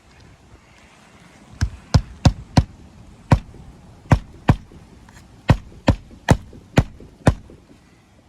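A hammer striking roofing nails into an asphalt shingle, about a dozen sharp blows at an uneven pace.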